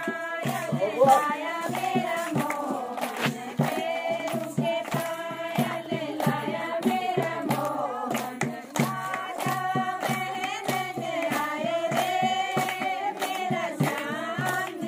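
A group of women singing a song together, keeping the beat with steady rhythmic hand-clapping.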